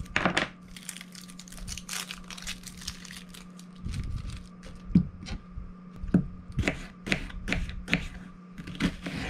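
Small paring knife working an onion on a wooden cutting board: quick light clicks and crackles of the knife peeling away the dry skin, then from about halfway through, a run of sharper knocks roughly every half second as the blade cuts through the onion onto the board.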